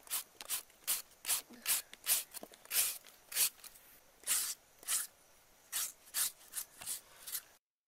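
Hand peeler blade shaving thin slices off a firm green mango: a quick run of short, crisp scraping strokes, about two a second with a short pause midway. It cuts off suddenly near the end.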